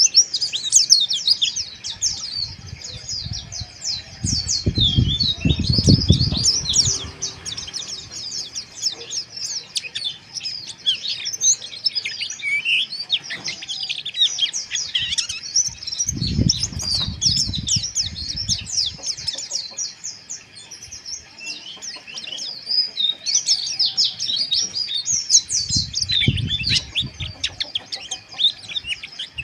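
White-eyes (pleci) giving fast, dense, raspy twittering (ngeriwik) with many rapid high chirps overlapping without a break. Three times a low rumble rises under the song.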